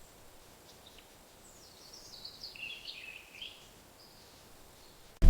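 A bird singing over a faint outdoor background: a run of quick chirping notes stepping down in pitch from about a second and a half in to about three and a half seconds in. Loud music cuts in abruptly at the very end.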